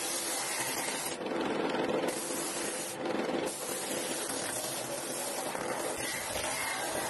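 Disc sander running while a small pallet-wood part is pressed against the spinning abrasive disc: a steady rushing hiss of sanding. Twice, about a second in and again around three seconds, the hiss turns briefly duller and lower.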